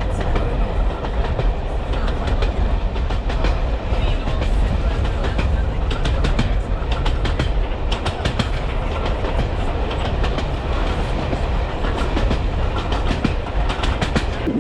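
Jacobite steam train carriage running along the track: a steady low rumble with rapid, irregular clicking of the wheels over the rails, heard through a half-open carriage window.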